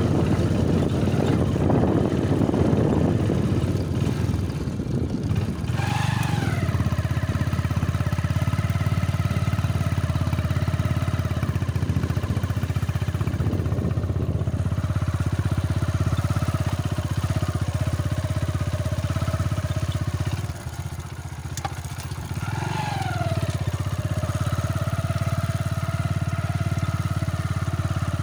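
Hero Honda motorcycle's single-cylinder engine running while riding. Twice the engine pitch falls sharply and settles onto a lower steady note, as the rider shifts up a gear: about six seconds in and again about two-thirds of the way through.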